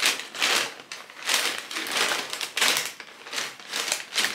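Paper packaging of Advent calendar treats rustling and crinkling in an irregular run of handled rustles as the wrapped gifts are rummaged through.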